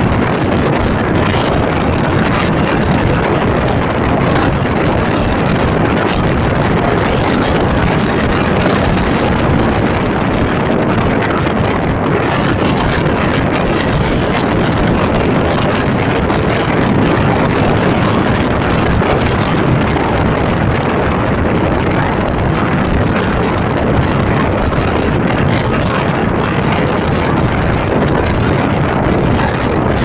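Steady rush of wind buffeting the microphone from a moving vehicle, mixed with the vehicle's running noise, with no breaks or distinct events.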